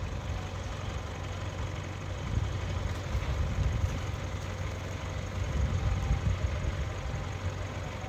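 Engine idling steadily, with a constant low hum and an uneven low rumble underneath.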